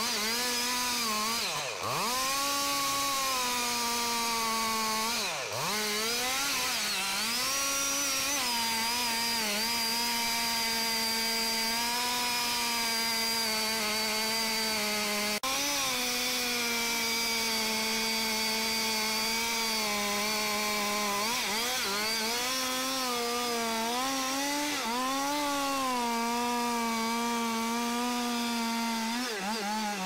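Large two-stroke chainsaw running at full throttle, cutting into the trunk of a giant tree. It holds a steady high engine note that dips sharply twice in the first few seconds and recovers, wavers under load later on, and drops and wobbles toward idle at the very end.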